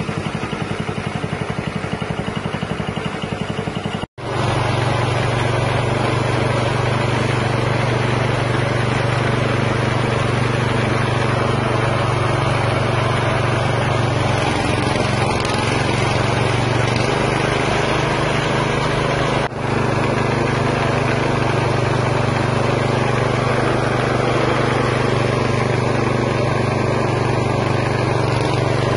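Small stationary engine running steadily, driving a belt-driven chicken meat-and-bone grinder while meat is fed through. The sound drops out suddenly and briefly about four seconds in, then carries on with a stronger low hum.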